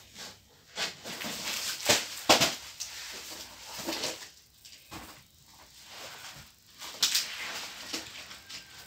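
Gift wrapping paper and packaging rustling and crinkling as a present is handled and unwrapped, with a few sharp crackles.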